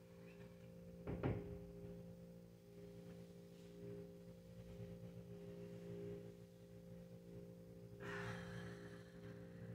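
Faint steady low hum, with a single sharp knock about a second in and a short rustle near the end as a cleaning wipe is drawn along the top of a wall-hung picture frame.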